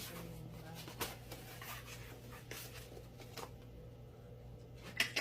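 Faint scraping and rustling of packaging and parts being handled during unboxing, with a few small sharp clicks, over a steady low hum.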